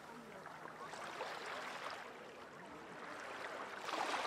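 Small waves washing onto the shore, a soft hiss that swells about a second in and again near the end, with faint murmuring of distant people.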